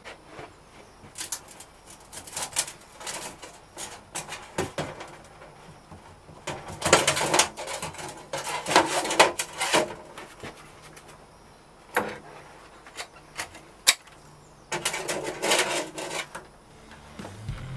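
Workshop handling noises: scattered knocks and clicks, with scraping rushes lasting a second or two about seven to nine seconds in and again near the end.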